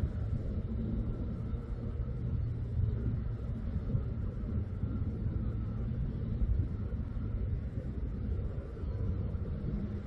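A steady low rumble.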